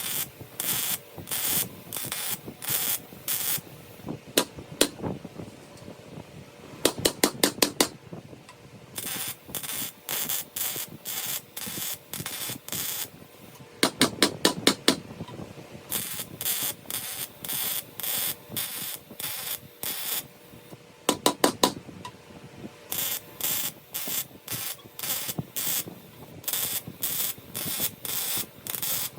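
Arc welding in short hissing bursts, each a fraction of a second with short pauses between: a carbon-steel sheet plate being stitch-welded onto the bottom of a steel well bladder tank. Three times, a quick run of five or six sharp metallic taps breaks in.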